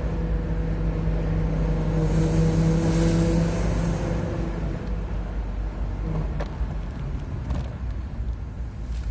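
Car running with a steady low humming drone over road or engine rumble, the noise its owner records as abnormal. The hum swells in the first few seconds and fades out about halfway through, leaving the rumble and a few light clicks.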